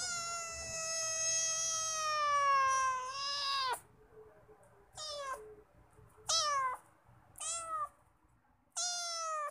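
A cat meowing: one long meow that falls in pitch at its end, then four short meows, each dropping in pitch.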